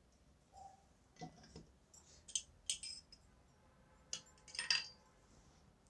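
Faint metallic clinks and ticks, a few with a short ring: a push-fit stainless hot air nozzle being worked in and out of the nozzle-removal holder on the hot air handpiece's support stand.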